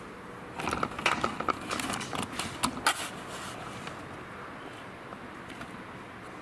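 Handling noise on a camcorder: a flurry of clicks, taps and rustles lasting about two and a half seconds, starting about half a second in, then only a steady faint hiss.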